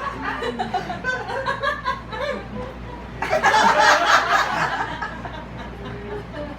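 A person laughing and chuckling in fits, with a louder burst of laughter a little past halfway.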